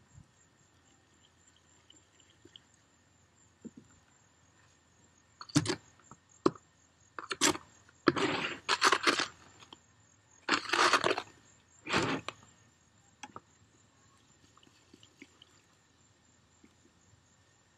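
Tile mortar being mixed by hand in a plastic bucket, the acrylic admixture worked into the dry powder: a run of short scraping bursts against the bucket from about five to twelve seconds in, with quieter stretches either side.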